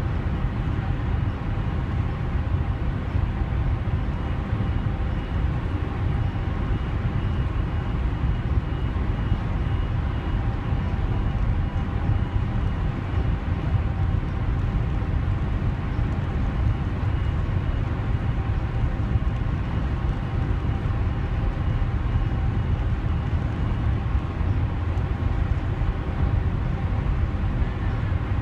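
A DFDS ferry's engines and shipboard machinery running steadily under way: a low rumble with faint steady hums above it.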